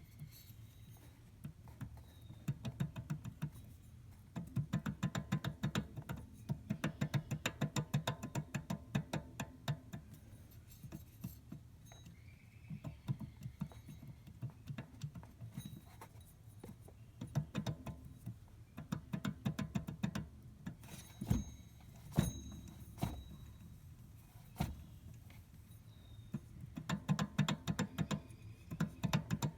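Engine belt tensioner pulley making noise: a rapid rattling tick that comes and goes in spells of several seconds, with a few single louder knocks in between.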